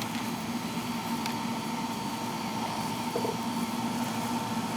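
1977 Chevy Caprice's stock 305 small-block V8 running steadily through an open Y-pipe with no catalytic converters.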